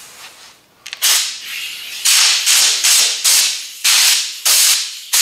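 Compressed-air blow gun fired in short hissing blasts, about one every half second, blowing sanding dust off block-sanded body filler. A click comes about a second in, just before the first blast.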